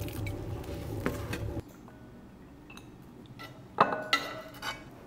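A frying pan and spatula knock against a ceramic bowl as food is scraped in: one sharp, ringing clink about four seconds in, then a few lighter knocks. Before this there is a steady low hum for the first second and a half, which cuts off.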